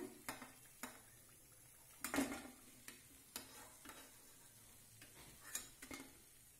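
A metal slotted spoon knocking and scraping against a kadai of hot oil as fried maida papdi are lifted out, with scattered clinks, the loudest about two seconds in. Faint sizzling of the frying oil underneath.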